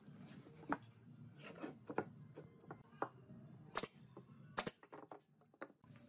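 Pine boards being handled and set on a wooden worktable: a series of sharp wooden knocks and clacks, about six in all, the two sharpest nearly four and five seconds in.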